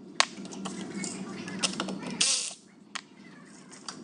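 Scattered sharp metallic clicks and clinks of hand tools on the driveshaft's fasteners and carrier bearing, with a short scrape a little over two seconds in. A low background hum stops at about the same moment.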